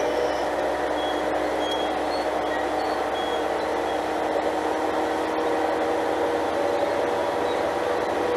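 Diesel engine of an Alstom Coradia Lint 41 multiple unit running steadily, with a constant whining drone.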